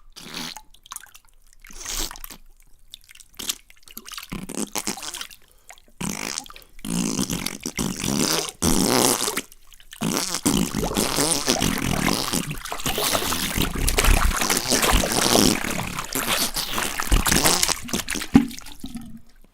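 Explosive-diarrhea sound effect: wet, sputtering farts with liquid splatter. It comes in short bursts with pauses at first, then runs as one long spluttering stretch of about nine seconds that cuts off suddenly near the end.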